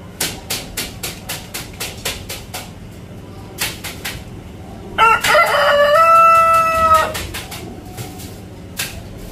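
Giant Brahma rooster crowing once, about five seconds in: a rough, broken opening that settles into a held note for about a second before stopping. Before it, a run of sharp taps, about three a second, comes in the first few seconds, with a few more just before the crow.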